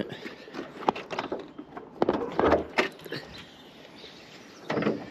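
Bonnet of a Ford Fiesta Mk6 ST being released and lifted open: a series of sharp clicks and knocks from the latch and bonnet, bunched about two to three seconds in, with a fuller sound near the end.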